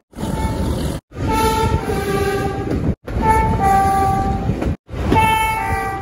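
Two-tone train horn sounding three times in short clips, each a higher note stepping down to a lower one, over the low rumble of the train.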